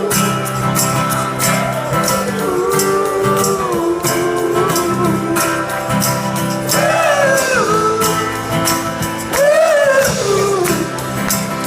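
Song continuing: a voice singing long, gliding wordless notes over instrumental backing with a steady beat.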